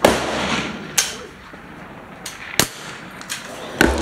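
Two sharp .22 rimfire rifle shots from a CZ 457 LRP bolt-action, one at the start and one near the end, each crack followed by an echo under the range's roof. Lighter clicks and knocks come between the shots.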